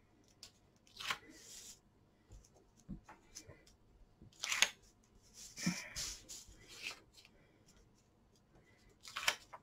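Faint paper rustling and rubbing as a sheet of transparent vellum is pressed and smoothed down onto a cardstock panel with the fingers. It comes in a few short scrapes: about a second in, twice around the middle, and again near the end.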